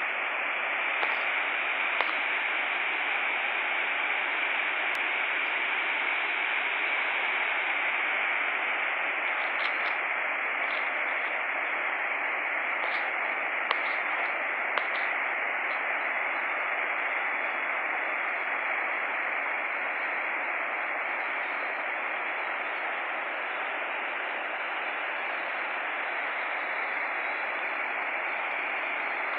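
Water rushing from the open spillway gates of a large river dam and churning below it: a steady, even rush of noise, with a few faint clicks.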